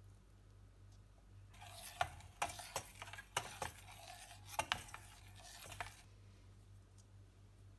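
A metal spoon stirs a thick chalk-and-glue ground with egg yolk in a stainless steel bowl, scraping and clinking against the bowl's side. The stirring starts about a second and a half in and stops about six seconds in.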